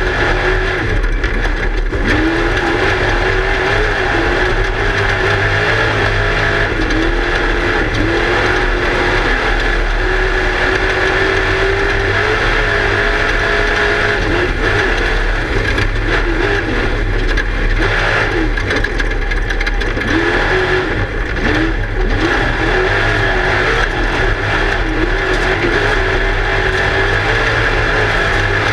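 Class 1 desert race car's engine running hard, heard from inside the car, its pitch rising and falling continually with the throttle over steady noise from the car and terrain. A few brief lifts off the throttle come about two-thirds of the way through.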